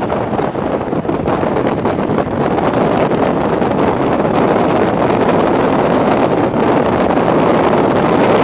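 Strong storm wind buffeting the microphone: a loud, steady rushing noise with crackles, growing a little louder about three seconds in.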